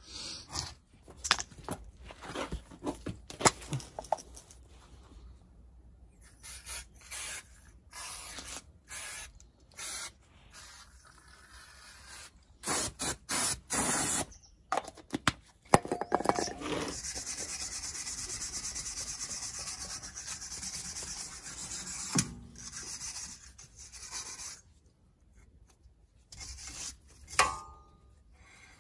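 Brake caliper and disc being cleaned: irregular rubbing strokes of a cloth wiping the caliper, then an aerosol can of brake and clutch parts cleaner spraying onto it, first in short bursts and then in a long steady hiss lasting several seconds.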